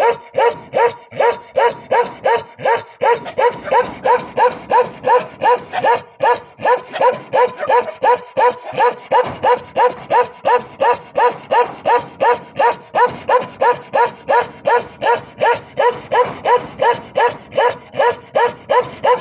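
Bakarwal dog barking nonstop in a steady rhythm, about two and a half barks a second.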